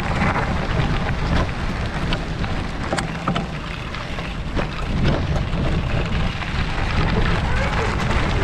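Wind buffeting the microphone over the rumble of a bicycle rolling along a trail, with a few scattered clicks and rattles.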